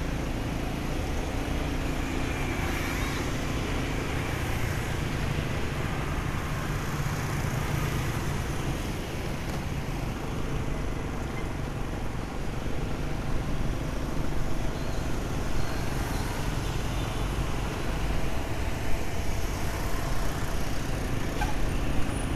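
Steady traffic and road noise heard from a moving motorbike: the bike's engine, surrounding scooters and cars, and a low rumble, with a few brief louder peaks near the end.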